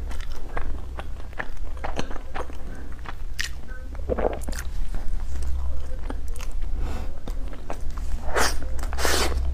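Close-miked eating of a chocolate-coated bread roll: chewing with small wet clicks and crumbly crunches, and a louder bite about eight seconds in.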